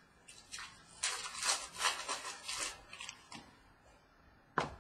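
Trading cards sliding against one another as a stack is flipped through by hand: several quick scraping strokes in the middle, then a sharp click near the end.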